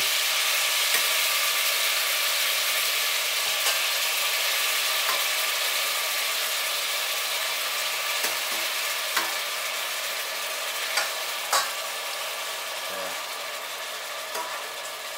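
Diced apple sizzling in hot melted butter and sugar in a stainless steel saucepan as it is stirred with a spoon. The sizzle slowly grows quieter, and there are a few light clicks of the spoon against the pan.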